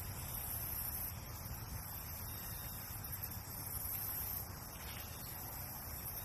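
Steady outdoor background noise: a low rumble under a high, even hiss that may be an insect chorus.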